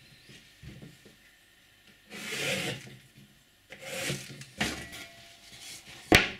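Plywood being scraped and rubbed by hand: three separate scrapes, each under a second, and a sharp knock near the end.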